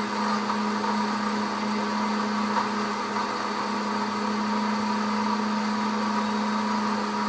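Pampered Chef cooking blender running steadily at high speed, blending frozen margaritas with ice, its motor giving a constant loud hum.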